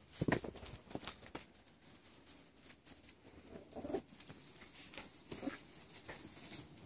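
Faint patter and scattered light taps of a small terrier puppy scampering on concrete, with a few short, faint squeaks.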